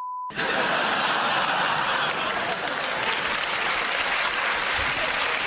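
A steady beep tone marking the blank in the question cuts off a moment in. Then a studio audience applauds.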